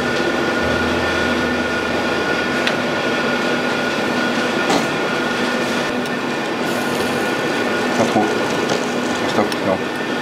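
Steady machine drone in a professional kitchen, with a constant high whine over a low hum. A few light clicks come early, and small clinks come near the end.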